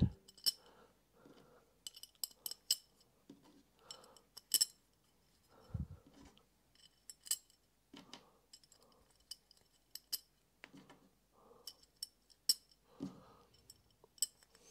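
Small metal bolts clinking as they are picked from a pile and fitted by hand into the holes of a metal router-mount plate: scattered light clicks and clinks, with a duller knock about six seconds in.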